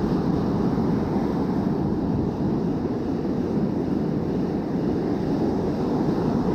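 Steady wind buffeting the microphone over breaking surf.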